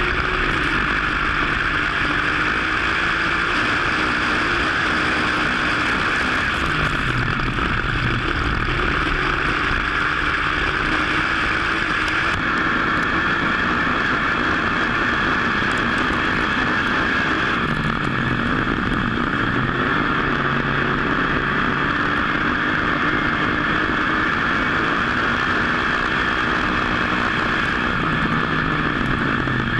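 Dirt-track modified race car's V8 engine at racing speed, heard from on board the car. Its pitch dips and climbs again about every ten seconds as the driver lifts for the turns and gets back on the throttle down the straights, over a constant rush of noise.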